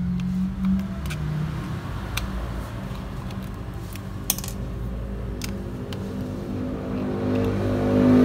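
Small metal clicks and taps as the screws and mounting bracket come off a laptop hard disk, heard over a steady low engine-like hum that swells near the end.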